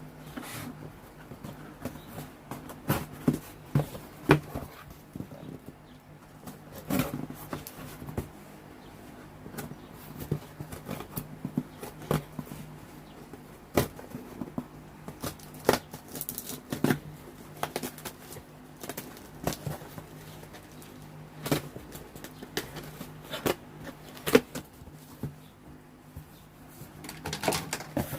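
A cardboard parcel being handled and opened by hand: irregular clicks, knocks and crinkling of packaging, over a steady low hum.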